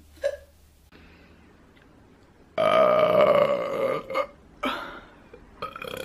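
A woman burping: one long, loud burp about two and a half seconds in, held for over a second at a fairly steady pitch, followed by a few shorter sounds.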